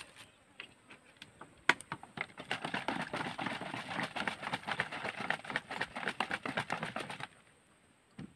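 Liquid poured from a small plastic bottle into a larger plastic bottle: a sharp tick of plastic, then a fast, irregular splashing and glugging through the bottle neck for about five seconds, stopping a second before the end.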